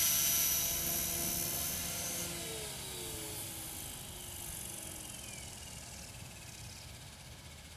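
Scale RC MD500D model helicopter spooling down on the ground after landing: a high motor whine cuts off about two seconds in, and the rotor sound falls in pitch and fades away.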